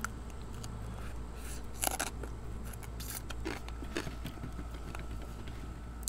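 Close-up eating sounds of crispy chicken wings: a few short, sharp crunches and crackles as crisp skin and gristle are bitten and picked off the bone. The loudest crunch comes just under two seconds in.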